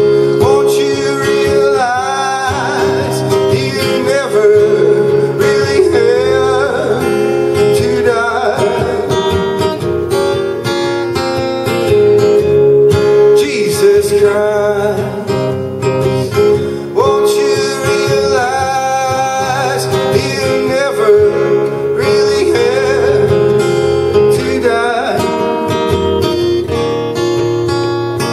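Acoustic guitar strummed in a live solo performance, with a man singing over it.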